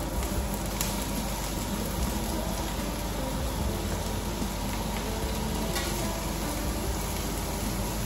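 Prawns, garlic and onion frying in hot oil in a pan: a steady sizzle.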